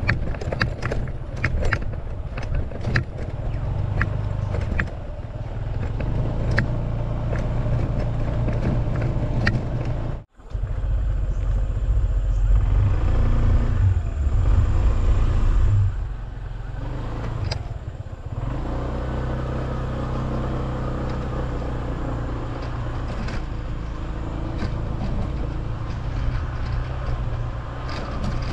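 Honda ADV150 scooter's single-cylinder engine running under way on a rough dirt track, with a heavy low rumble and many sharp clattering knocks from the bumps during the first half. The sound cuts out for a moment about ten seconds in, then comes back louder before settling to a steadier run.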